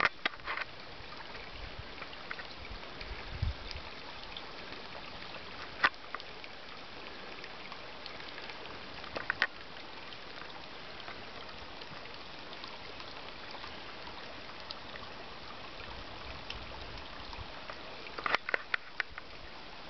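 Small rocky desert brook babbling steadily over stones, with a few sharp clicks: one loud one about six seconds in, a pair a few seconds later, and a quick cluster near the end.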